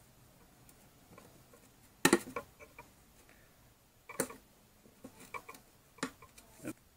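Sharp plastic clicks and snaps of a tarantula enclosure's lid being handled and worked loose, a handful spread over several seconds, the loudest about two seconds in and again about four seconds in.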